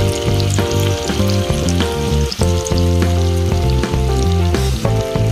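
Chilli pork stir-fry sizzling and crackling in hot oil in a pan, under background music with a steady run of bass notes and chords.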